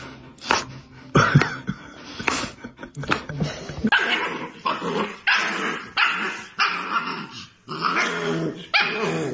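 A husky puppy barking over and over, a call roughly every two-thirds of a second from about four seconds in. Before that there are scattered knocks and short sounds.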